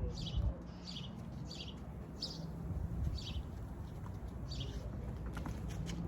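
A small bird calling repeatedly, short high chirps that fall in pitch, about six of them over five seconds, over a low steady rumble; a few sharp clicks near the end.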